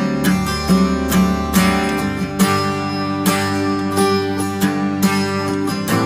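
Background music: strummed acoustic guitar with a steady rhythm.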